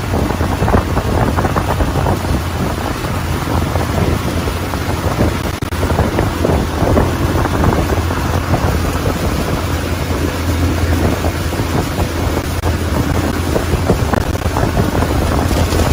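Motorboat running at speed: a steady engine drone under wind buffeting the microphone and the rush of churned wake water.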